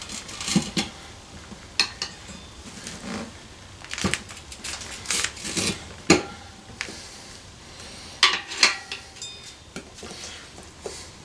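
Steel tire irons clinking and scraping against a motorcycle wheel rim while prying a tire bead over it: irregular metallic clinks and knocks, some with a brief ring.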